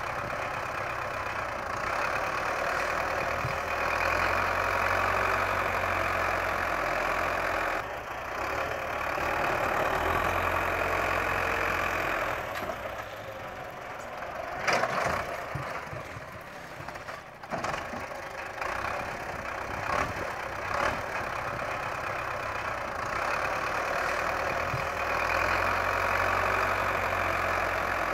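Diesel engine of a front-loader tractor under load as it climbs a steep dirt slope, its sound swelling and easing in stretches. It drops off for several seconds about halfway, with a few sharp knocks, then works hard again near the end.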